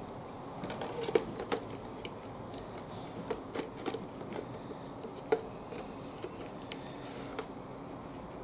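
Scattered light clicks and taps of things being handled, irregular and unhurried, over a faint steady hiss; the sharpest is about a second in and another just past five seconds.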